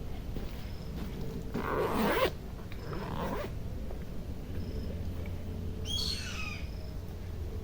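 Two short rasping scrapes about a second apart, the first the louder, then a single call falling steeply in pitch near the end. A faint high chirp repeats about every two seconds throughout.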